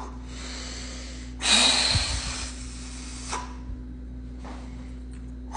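A man's heavy breathing: faint breaths, then one loud, rushing breath about two seconds long beginning about a second and a half in, and a fainter one near the end.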